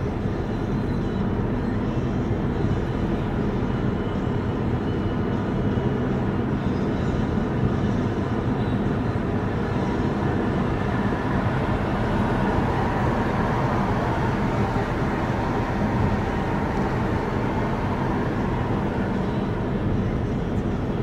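Car driving at a steady pace: continuous engine and tyre road noise.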